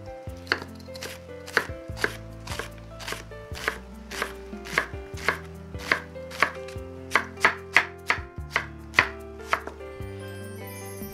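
Chef's knife chopping an onion on a wooden cutting board: sharp knocks about two a second, quickening past the middle, then stopping near the end.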